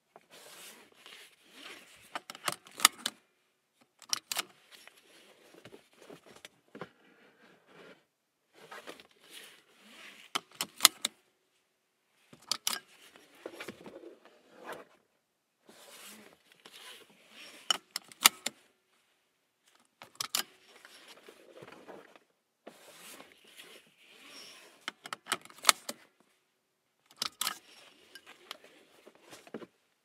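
Car seat belt buckled and unbuckled again and again, about nine rounds. Each round is a rustle of the webbing sliding, then a few sharp metallic clicks as the latch plate snaps into or releases from the buckle.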